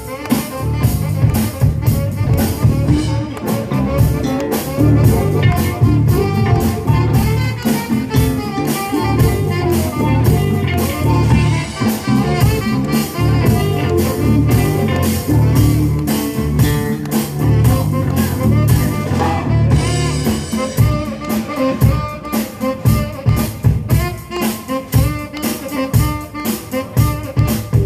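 Live band playing, with a bass guitar carrying a loud bass line over a drum kit. About twenty seconds in the bass line drops out, leaving the drums and higher instruments.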